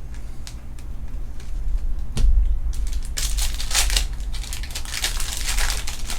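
A foil trading-card pack being torn open and its wrapper crinkled, after a single knock about two seconds in.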